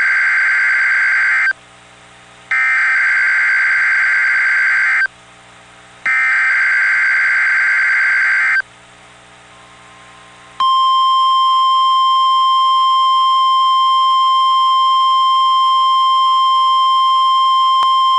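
NOAA Weather Radio Required Weekly Test from station WXK-49 Memphis. First comes the end of one SAME digital header burst, then two more: each is a harsh buzzing data burst about two and a half seconds long, with about a second of low receiver hum between them. About ten seconds in, the steady 1050 Hz warning alarm tone begins and holds.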